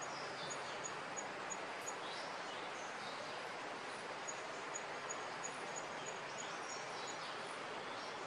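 Outdoor ambience: a steady hiss with a high, thin chirp repeating about three times a second, broken off for a couple of seconds in the middle, and a few short falling high calls.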